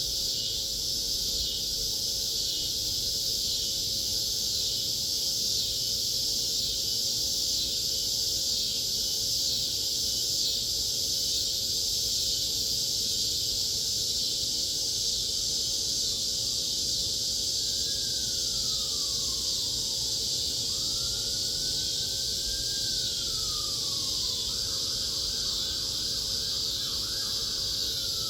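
Evening chorus of cicadas: a steady, high, shrill buzz. About eighteen seconds in, a faint siren starts to sound under it, gliding down, up and down again, then switching to a fast warble near the end.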